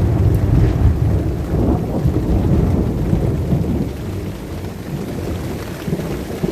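Thunder rumbling low and rolling, loudest in the first few seconds and then slowly dying away, over the steady hiss of rain.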